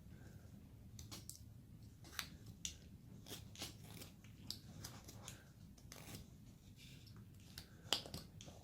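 Hand carving tool cutting basswood: faint, irregular short clicks and snicks as the blade takes off small chips and slices.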